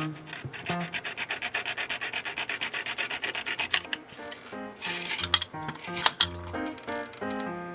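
Fine-toothed X-Acto razor saw cutting a plastic model-kit part with quick back-and-forth strokes for the first three and a half seconds or so, then a few sharp clicks. Background music plays throughout.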